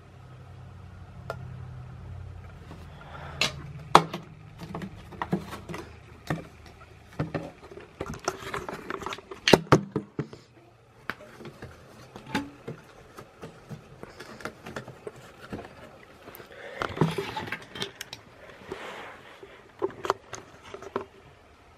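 Handling noise from a flood light fixture and its plastic photocell: scattered clicks, knocks and rustling as the parts are picked up and moved, with a low hum that stops about seven seconds in.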